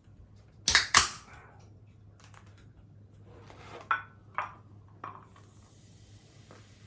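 A few sharp clicks and taps of food and its packaging being handled on the table: two loud ones close together about a second in, then three fainter ones later.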